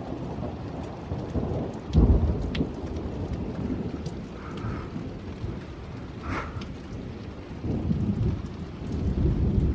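Steady rain falling, with thunder: a sudden loud clap about two seconds in, and low rumbling building again near the end.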